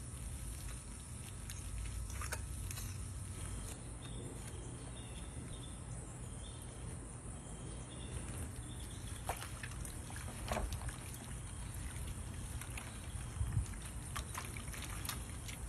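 Wet squelching and soft clicks of smoked pork butt being handled in its juices: the bone pulled out and the meat pulled apart by gloved hands, over a steady low rumble.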